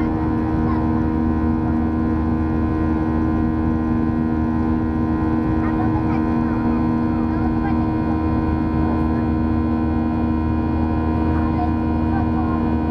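Cabin noise of a Boeing 737-800 climbing out: a steady drone from its CFM56-7B turbofan engines, with two strong humming tones over a wide rushing noise of air.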